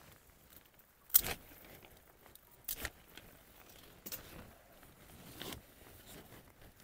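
Packaging being handled during an unboxing: a few short rustles and crinkles.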